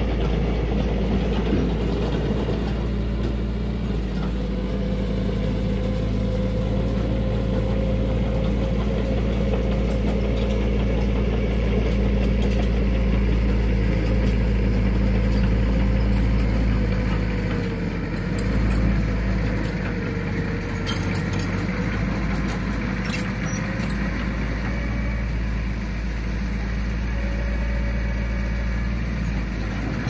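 Heavy diesel machinery engine running steadily, a low hum whose pitch wavers slightly, with a few sharp clicks about two-thirds of the way through.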